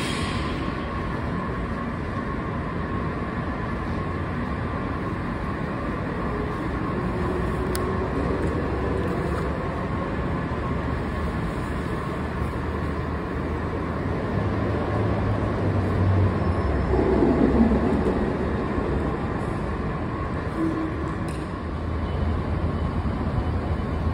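Steady low rumble of a Metro subway station, from trains and station machinery, with a faint steady hum over it. It swells to its loudest a few seconds after the middle, then settles back.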